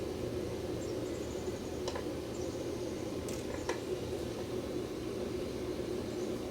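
Steady low hum and hiss with faint high chirps, like distant birds, and a few sharp clicks about two and three and a half seconds in.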